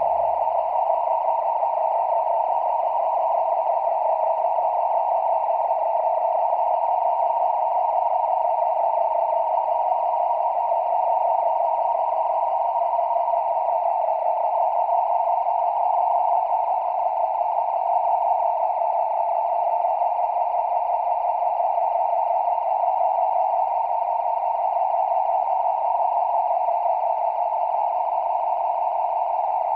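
A steady, unchanging muffled hiss-like drone with no beat or melody, like narrow-band radio static, used as a dark ambient passage on a Halloween music tape.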